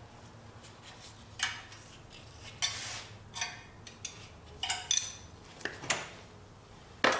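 Metal hand tools and engine parts clinking and clanking against each other, about eight separate sharp knocks at uneven intervals.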